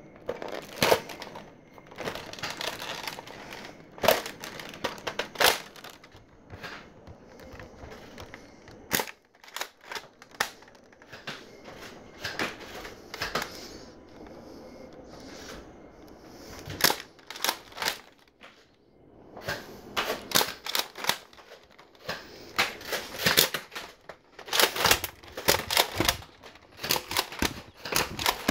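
Irregular sharp plastic clicks and clacks from Nerf foam-dart blasters being handled, bunched in quick runs, thickest in the second half.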